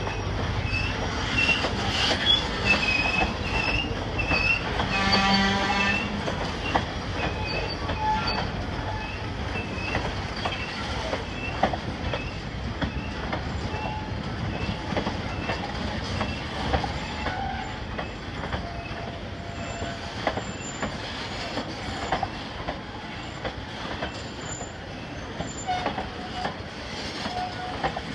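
Freight train of covered hoppers and tank cars rolling through a grade crossing: a steady rumble and clatter of steel wheels on rail, with frequent sharp wheel clicks. It is loudest in the first few seconds, and a short higher tone sounds about five seconds in.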